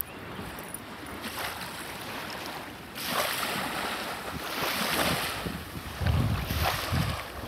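Wind gusting over the microphone, rumbling hardest in the second half, over the soft wash of small waves on a sandy river shore.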